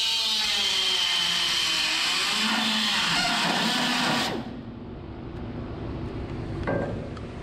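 Pneumatic die grinder cutting into steel sheet, its high whine wavering up and down as the bit bites, then shutting off about four seconds in. A short sound comes near the end.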